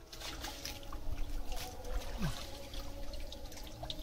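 Pond water splashing and dripping around a person wading and working a hand net on a stick frame, in a string of short splashes and drips.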